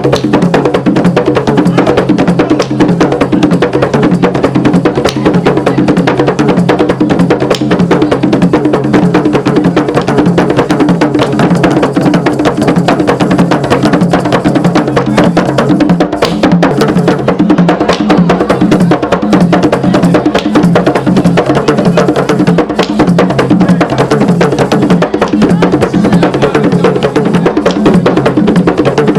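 Traditional African music driven by drums and a dense, fast run of hard, wood-block-like strikes, over steady pitched tones that carry on without a break.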